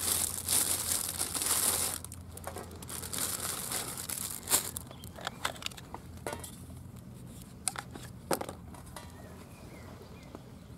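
Packaging crinkling and rustling as food is handled, dense for about the first two seconds, then a few scattered clicks and taps.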